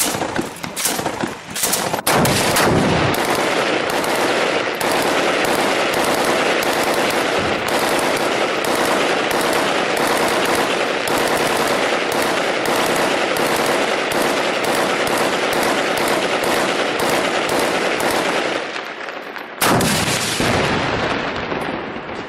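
Gunfire. A few separate shots come in the first two seconds, then a long stretch of dense, continuous automatic fire, and a single louder bang about twenty seconds in.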